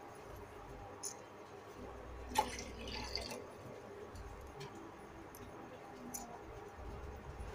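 Water being poured into a cooking pot, with a few light clinks and ticks, the sharpest about two and a half seconds in.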